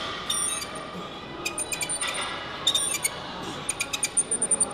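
A cable-machine attachment clicking and squeaking in short high-pitched clusters, one cluster with each rep of cable pullovers, roughly every second or so. The attachment is a noisy one.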